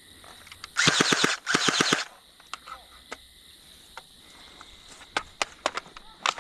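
Airsoft gun firing two short full-auto bursts about a second in, a rapid string of sharp snaps each. A few separate sharp clicks follow near the end.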